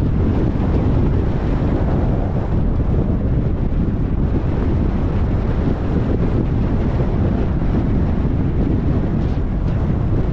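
Steady low rumble of road and wind noise from a moving car, unchanging, with no distinct events.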